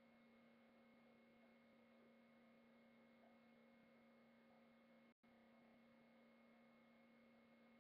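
Near silence: a faint steady hum with a few fixed tones, typical of recording-chain noise, cutting out completely for an instant about five seconds in.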